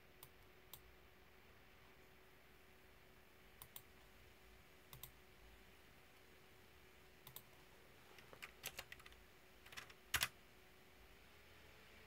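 Faint, sparse clicks from a computer mouse and a typewriter-style mechanical keyboard: single clicks and quick pairs, then a busier run of clicks near the end, the loudest about ten seconds in. A faint steady hum runs underneath.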